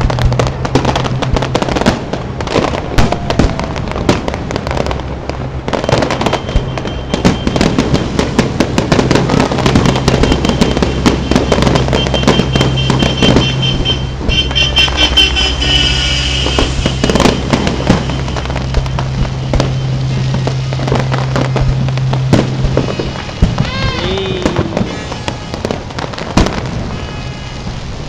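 Aerial fireworks display: a dense, continuous run of shell bursts and crackling. Whistling tones come about halfway through, and a few rising whistles near the end.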